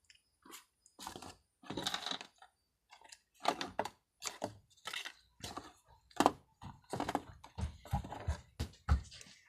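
Small plastic toys and packaging being handled: irregular clicks, taps and rustles, with a few dull knocks near the end.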